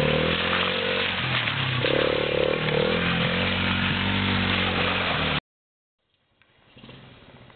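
Small ATV engine running, its pitch rising and falling as it is revved lightly, then cut off abruptly about five seconds in. After a short silence, a much quieter stretch follows with a few faint clicks.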